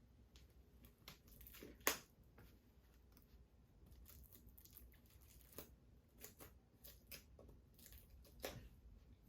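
Faint handling noises as a shrink-wrapped Blu-ray package is opened: plastic wrap tearing and crinkling in scattered short rustles, with a sharp click about two seconds in and another near the end.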